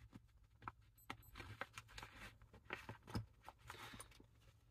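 Faint clicks, taps and rustling as a metal wrench is handled and slotted back into its place in a nylon tool bag.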